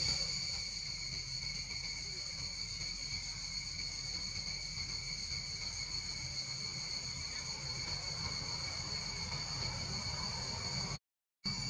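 Steady, high-pitched insect chorus over a low background rumble. The sound drops out completely for a moment near the end.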